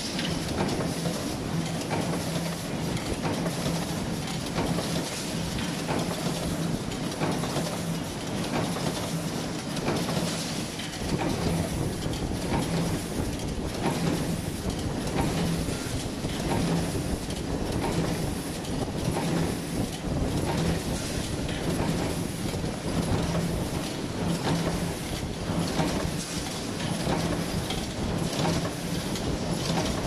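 Mechanical punch presses stamping steel door hinge fittings: a continuous, rapid clatter of press strokes and die impacts over a steady machine hum.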